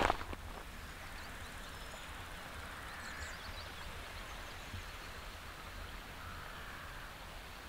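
Faint open-air ambience on a moor: a steady soft hiss over a low rumble, with a few faint high bird chirps about three seconds in.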